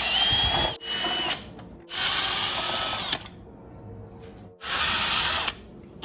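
DeWalt 20V brushless cordless drill driving a T25 Torx bit, backing out screws: the motor runs in four short bursts with a whine, the first two close together, with brief pauses between.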